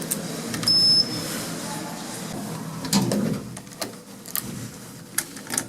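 Murmur of people's voices in a public space with scattered clicks and knocks, and a short high-pitched electronic beep about a second in.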